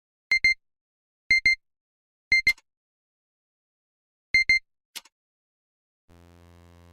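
Electronic double beeps at the start of a song: four pairs of short, high-pitched beeps, three of them about a second apart and the last after a longer gap, with sharp clicks beside the last two pairs. A low buzzy synthesizer tone comes in near the end.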